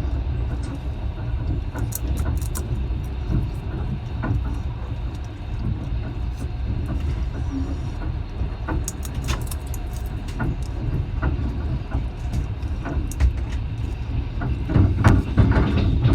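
Train in motion: a steady low rumble with scattered clicks and rattles, growing louder near the end.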